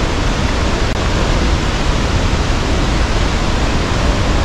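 Niagara's American Falls heard from close below at the base: a loud, steady rush of falling water with a deep low rumble and no let-up.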